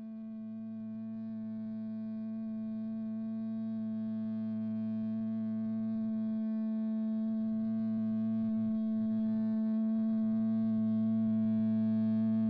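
Music: a held, droning instrumental tone slowly swelling in at the start of a math rock track, with a lower tone beneath it that drops out for about a second midway and comes back.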